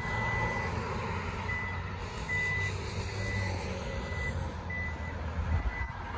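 Vehicle reversing alarm beeping: a single high tone repeating evenly, a little more than once a second, over steady street traffic noise and a low engine rumble.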